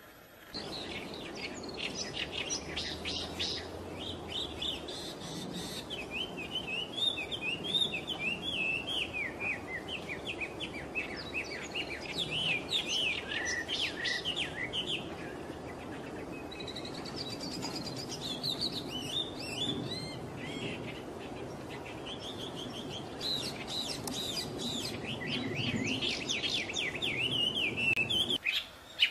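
Wambi songbird singing a long, lively run of rapid chirping and trilled phrases, high-pitched, with short breaks between phrases, over a faint steady background hiss.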